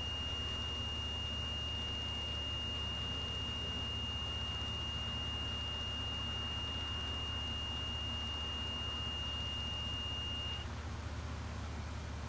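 Dilatometer control unit buzzer sounding one steady high tone, then cutting off suddenly about ten and a half seconds in. The stop means the membrane has lifted off the sensing disc under rising gas pressure: the moment the A reading is taken. A low steady hum runs underneath.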